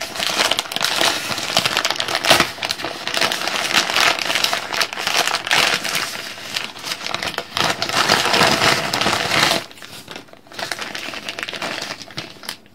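Plastic mail packaging being crinkled and handled as a parcel is unwrapped, a dense crackling that drops away sharply about ten seconds in.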